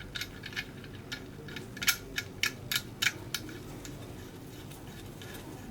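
A string of short, sharp clicks and light taps, about a dozen over the first three and a half seconds and one more near the end. These are the fittings being handled while an oxygen pressure regulator is connected to a ventilator's oxygen supply.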